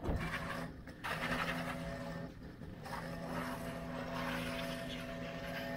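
Pressure washer's engine running at a steady pitch, driving a wet sandblasting kit, with on-and-off hissing spray as the water and sand stream is fired.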